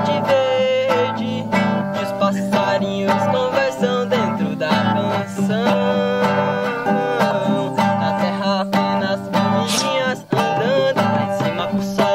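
A man singing while strumming an acoustic guitar in a steady rhythm.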